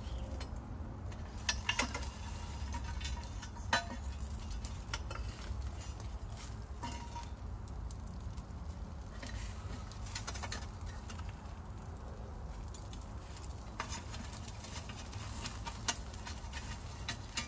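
Oak-ember cooking fire crackling, with scattered sharp pops over a low steady rumble.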